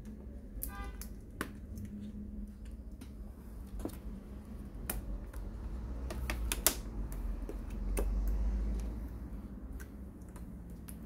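Scattered small clicks and taps as tweezers and fingertips work on a laptop's plastic top case and metal keyboard plate, with a brief squeak about a second in. A low rumble of the case being handled comes about eight seconds in.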